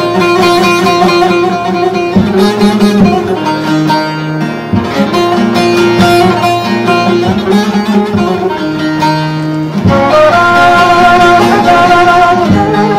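Instrumental background music led by plucked strings, playing a melody of held, wavering notes.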